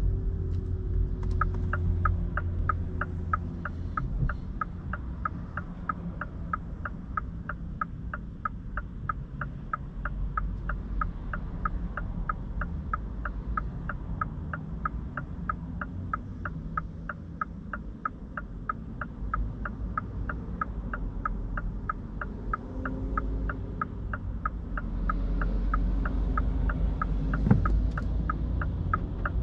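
Turn-signal indicator ticking inside the cabin of a 2023 Mini Cooper SE electric car, a fast even ticking that starts about a second in, over a low rumble of road and cabin noise that grows louder near the end.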